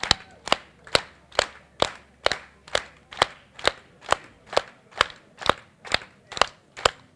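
Hands clapping in a steady, even rhythm, about two sharp claps a second.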